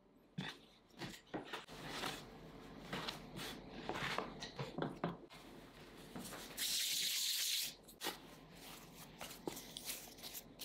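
Bread dough being cut with a plastic dough scraper and handled on a floured wooden board: a string of soft taps and light knocks. About two-thirds of the way through, a steady hiss lasts about a second as flour is sprinkled over the board, followed by the light rubbing of hands rounding dough pieces.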